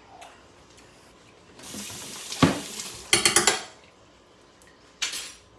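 Kitchen clatter of utensils and dishes: a rushing hiss lasting about a second and a half with a sharp knock in it, then a quick run of clinks, and another short clatter near the end.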